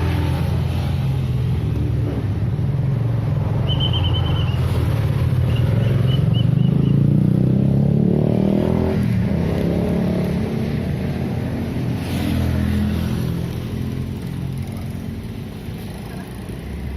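Road traffic: vehicle engines running close by, one swelling and rising in pitch as it passes about eight seconds in, then fading. A few short high chirps sound about four to six seconds in.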